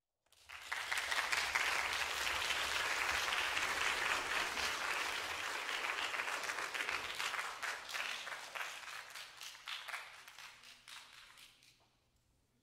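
Audience applauding. The applause starts within the first second, holds steady, then thins to a few scattered claps and dies away near the end.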